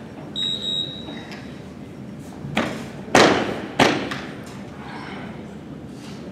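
A short high electronic beep about half a second in, then three heavy thuds echoing in a large hall, the second and third the loudest and about half a second apart. The thuds are typical of a loaded barbell with bumper plates dropped onto a lifting platform and bouncing.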